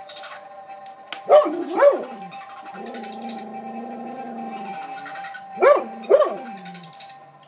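Dog barking warily at a Halloween figure: two barks about a second in and two more near the end. A quieter low drawn-out sound comes between the pairs.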